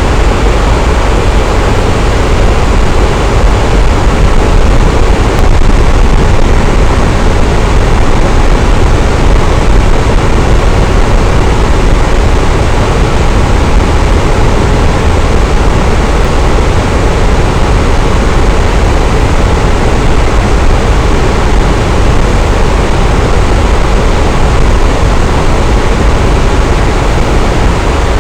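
Electric fan running steadily: a loud, even whooshing rush of moving air with a deep low hum, unchanging throughout.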